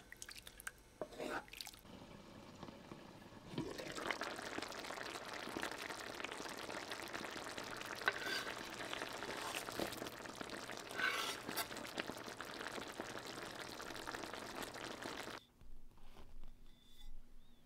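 Water running or pouring steadily for about twelve seconds, then stopping abruptly. A few light knocks of handling come before it.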